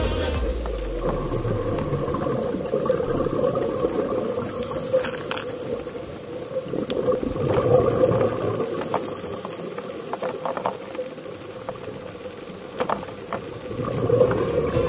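Muffled underwater sound through a camera's waterproof housing: scuba divers' exhaled bubbles bubbling and rushing, with scattered clicks. It swells louder about halfway through and again near the end.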